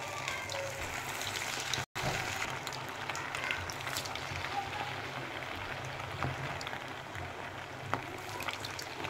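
Hot oil sizzling and crackling steadily as marinated chicken pieces deep-fry in a steel kadhai, more pieces being slid into the bubbling oil with a spoon. The sound breaks off for an instant about two seconds in.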